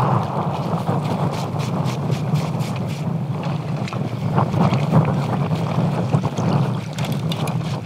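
A fishing boat's motor running steadily at low speed, with wind buffeting the microphone and faint ticks over the top.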